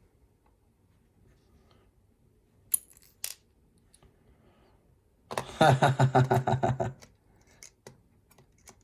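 Small metal lock parts handled while a lock is taken apart: two sharp clicks, then about halfway through a rapid metallic rattle lasting a second and a half, followed by a few faint ticks.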